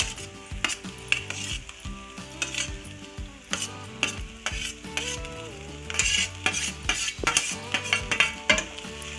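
A metal spoon scraping and knocking against a metal bowl and pan as cooked rice is pushed into a pan of frying vegetables, with repeated sharp clinks over a low sizzle.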